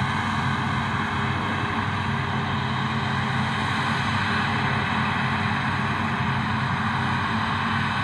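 Claas Lexion combine harvester running steadily while harvesting grain: a constant engine drone over a broad machinery noise, with no change in pitch.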